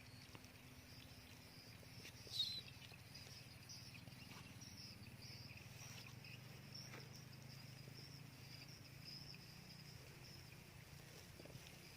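Faint outdoor ambience of insects chirping steadily in a high pitch, with one brief louder chirp about two and a half seconds in.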